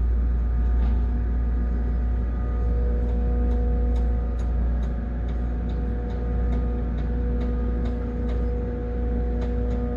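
Inside a tower crane's operator cab, a heavy steady low rumble runs under a steady electric hum, which grows stronger a couple of seconds in. From about three seconds in there is a regular light ticking, two to three ticks a second.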